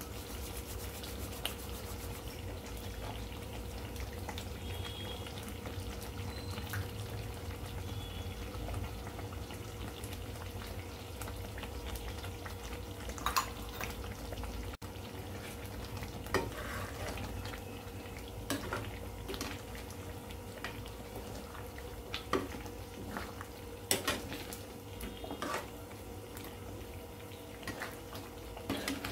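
Thick chicken curry sizzling and simmering in a kadai over a low steady rumble. From about halfway through, scattered clicks and scrapes of a metal spatula against the pan as the curry is stirred.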